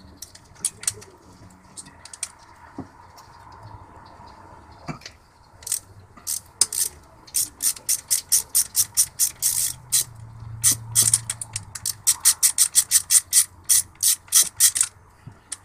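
Socket ratchet wrench clicking as cylinder head bolts are loosened and run out. A few scattered clicks at first, then from about five seconds in, quick runs of sharp clicks, several a second, growing denser toward the end.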